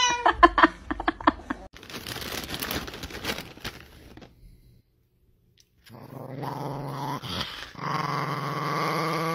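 Plastic snack bag crinkling, then, after a short silence, a small dog growling steadily and at length, louder from about eight seconds in.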